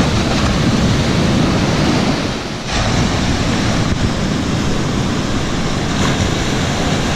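Ocean surf rushing, with wind buffeting the microphone: a loud steady roar of noise that eases briefly a little over two seconds in, then surges back.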